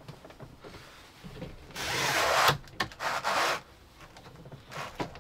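A replacement catch cover being handled and clipped back into place: two rubbing, scraping stretches about two and three seconds in, with a few sharp clicks.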